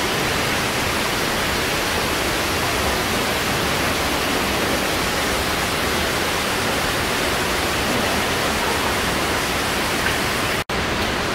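Steady, loud rush of water from a waterfall cascading inside a cave, broken for an instant near the end.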